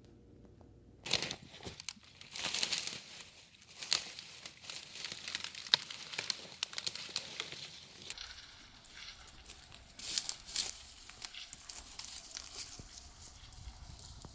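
Crinkling and crackling handling sounds: dense, irregular crackles that begin about a second in, change in texture about eight seconds in and pick up again around ten seconds in.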